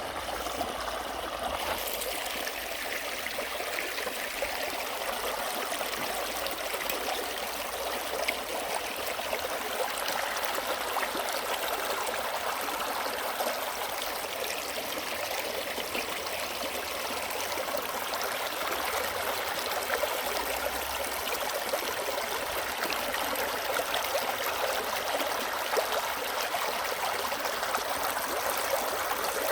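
Mountain valley stream flowing over rocks: a steady rushing and babbling of water with small splashes.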